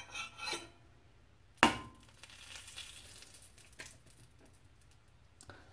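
A single sharp clink of kitchenware with a short ring about one and a half seconds in, then a faint sizzle of butter browning in a hot skillet, with a light tap partway through.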